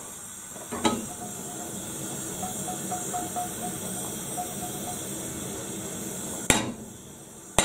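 Gas hob burner running with a steady hiss under a small frying pan of oil, with a knock about a second in and two sharp metal clanks of the pan on the pan supports near the end.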